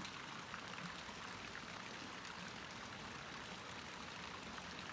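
Steady, faint background hiss with no distinct events.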